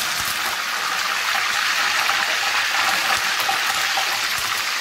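Fresh curry leaves frying in hot sunflower oil in a kadai: a loud, steady sizzling hiss from the bubbling oil.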